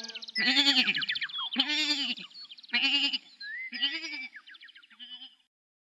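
Sheep bleating four times, each a short wavering "baa" about a second apart, the later ones fainter.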